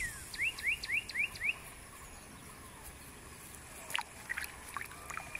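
A songbird sings a quick run of five rising whistled notes, about four a second. A sharp click follows about four seconds in, with a few short chirps after it.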